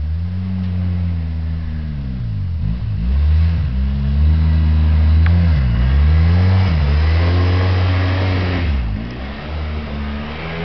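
Vehicle engine working as it plows snow, its speed rising and falling repeatedly, with the pitch dipping and recovering about every three seconds. A hissing noise swells for a second or two near the end.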